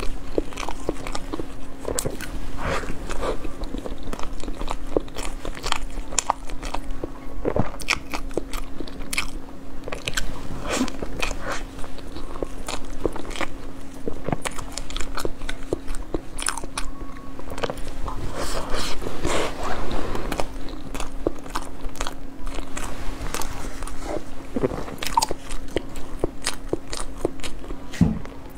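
Close-miked biting and chewing of soft food, with many short wet clicks of the mouth, over a steady low hum.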